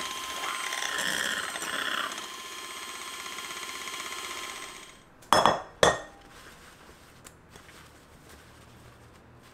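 Electric hand mixer whisking egg whites in a glass bowl, a steady whir with a thin tone for about five seconds before it is switched off. Two sharp knocks follow about half a second apart.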